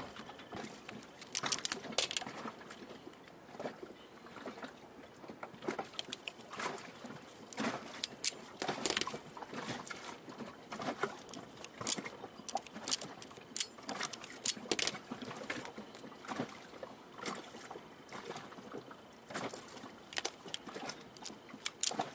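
Irregular light clicks and taps of hands handling a coaxial antenna cable and working its connector with small hand tools.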